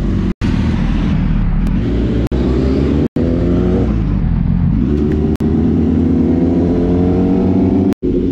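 Motorcycle engine accelerating while riding: its pitch climbs, drops around the middle, and climbs again. It is broken by three very short gaps of silence, about half a second in, at about three seconds, and near the end.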